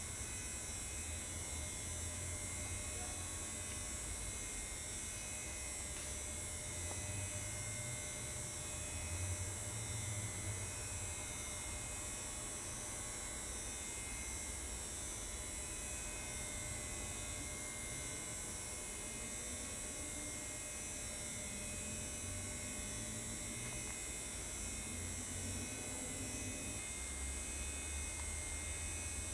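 Steady electrical hum and hiss with a low rumble underneath, no distinct event standing out.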